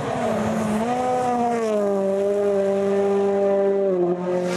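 Rally car engine running at high revs on a stage, its pitch held nearly steady with a small rise about a second in and a slight dip about four seconds in.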